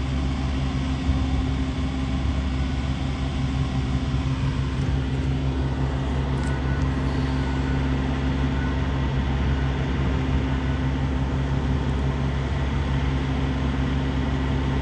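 Steady low engine and road hum heard from inside a car's cabin.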